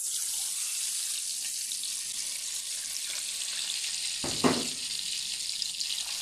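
Hot oil sizzling steadily around just-fried sesame seeds, with one short knock of a metal utensil about four and a half seconds in.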